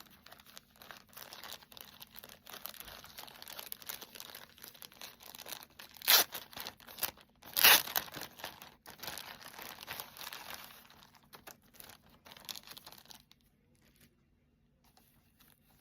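Packaging crinkling and rustling as items are unwrapped and handled, with two louder rustles about six and eight seconds in; the handling dies down over the last couple of seconds.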